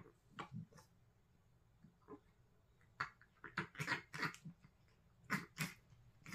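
A cat with a blocked, runny nose makes short noisy bursts of air through its nose. There is a quick run of them about three to four and a half seconds in, and a pair near the end. This is typical of its chronic nasal congestion.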